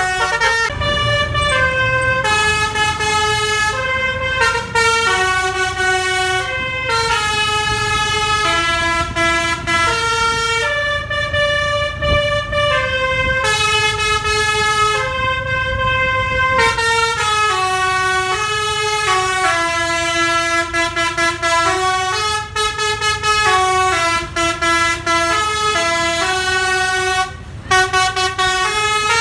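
Telolet multi-trumpet bus air horn (basuri type) played by hand like a melodica, sounding a continuous tune of held notes that step up and down, with a steady low rumble underneath.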